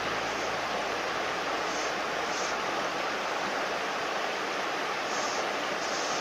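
Shallow mountain stream rushing steadily over stones.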